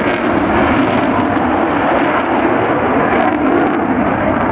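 Loud, steady jet noise of a Eurofighter Typhoon's twin EJ200 turbofan engines in display flight.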